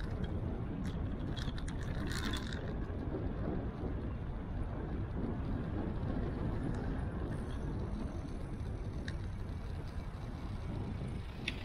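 Steady low rumble of wind and road noise on a bike-mounted action camera's microphone, with a few light clicks and rattles in the first couple of seconds and again near the end.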